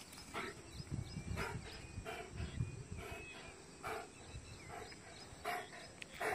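Greyhound panting hard after a sprint, short breaths about two a second.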